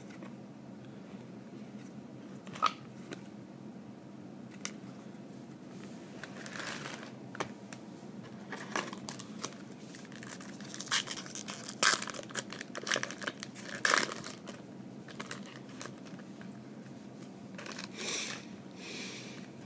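Foil trading-card pack wrappers from 2012 Upper Deck SP Authentic football packs being torn open and crinkled, with cards handled in between. Scattered sharp clicks and short rustling crackles, busiest in the middle and again near the end.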